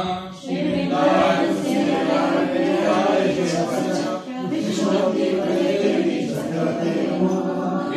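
Voices singing a Hindu devotional chant to the tulsi plant, unaccompanied and without a break.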